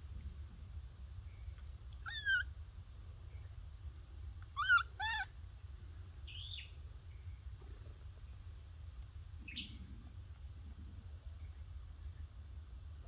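Short high-pitched animal calls: one about two seconds in, a louder pair close together near five seconds, then a couple of fainter chirps, over a steady high insect whine.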